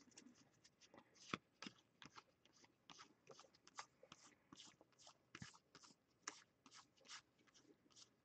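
Faint handling of trading cards being thumbed through one by one: a run of soft, irregular clicks and slides, a few each second.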